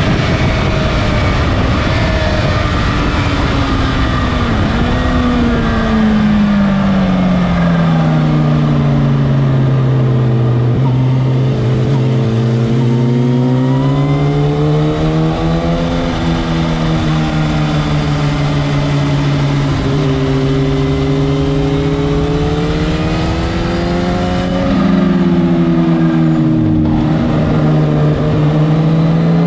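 Motorcycle engine running hard under a rider on a racetrack, its pitch falling and climbing again as it slows and accelerates through corners, over a constant rush of wind noise.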